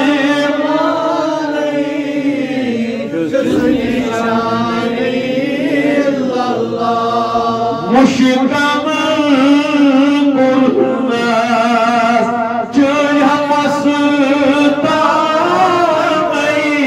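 A man's voice chanting devotional verse in a long, wavering melody of held notes, a new phrase starting about halfway through.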